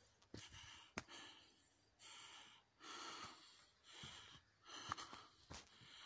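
Hard breathing, in hazy swells roughly once a second, with sharp snaps of footsteps on twigs and dry leaf litter.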